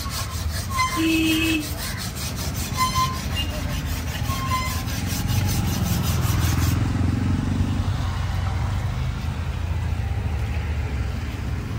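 A large knife blade is sharpened on a stone block with rapid, even back-and-forth scraping strokes, which stop about seven seconds in. A low steady rumble follows.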